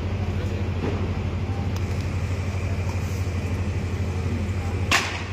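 An engine running steadily with a low, pulsing hum, and one sharp crack near the end.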